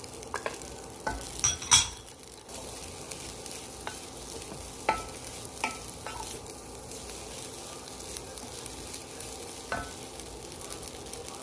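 Fried rice sizzling in a pot while a wooden spatula stirs and scrapes through it, with scattered light knocks and a louder clatter about a second and a half in.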